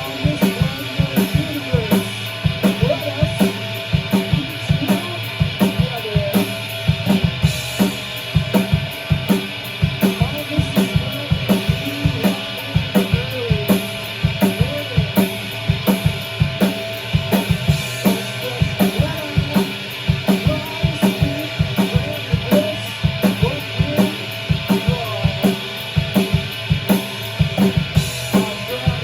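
A rock band playing a song live: the drum kit keeps a steady beat on kick drum and snare under sustained, sometimes bending electric guitar.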